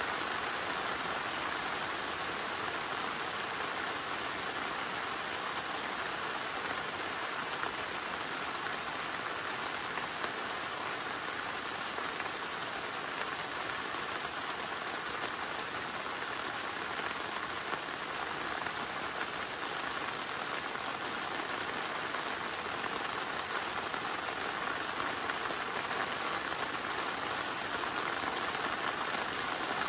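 Steady rain falling, an even hiss of many fine drops with no single loud event.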